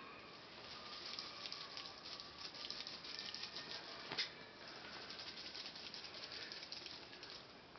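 Light, dense rustling and crackling made of many small clicks, with one sharper click about four seconds in.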